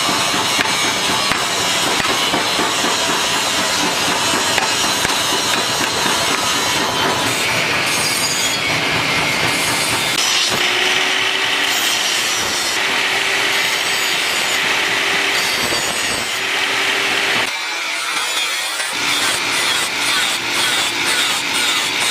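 Steady rasping of a hand tool scraping back and forth on metal, with a brief dip in level about seventeen seconds in.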